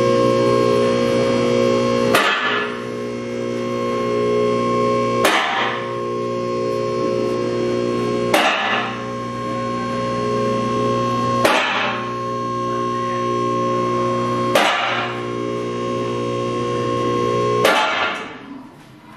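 Background music: guitar chords struck about every three seconds and left to ring, fading out near the end.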